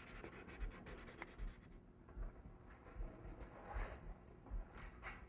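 Faint scratchy strokes of a drawing tool on paper: a quick run of short strokes in the first second and a half, then a few separate strokes later.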